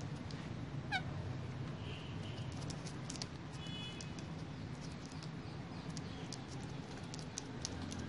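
Indian ringneck parakeets: one short falling squawk about a second in, a couple of brief high chirps around the middle, and many light clicks from the birds moving about on the tabletop, over a steady low hum.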